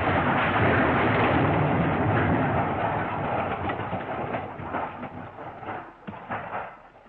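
The tail of a crash sound effect: a loud rumbling noise that fades away over several seconds, with a few scattered sharp clicks near the end.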